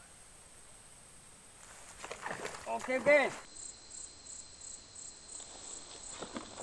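Steady, high-pitched insect chirring in the background, with a short, loud vocal exclamation about two to three seconds in.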